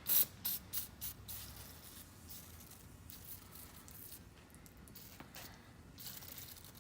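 Penetrating oil sprayed from an aerosol can in about five short bursts in the first second and a half, then a fainter hiss, with another short spray about six seconds in, worked onto the seized, rusted mechanism of an old wrench.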